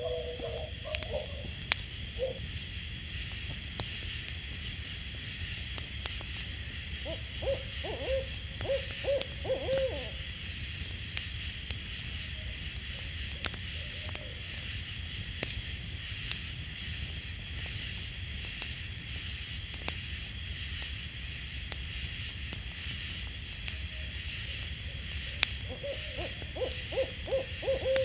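An owl hooting in short runs of quick notes, once about a third of the way in and again near the end, over a steady high hiss.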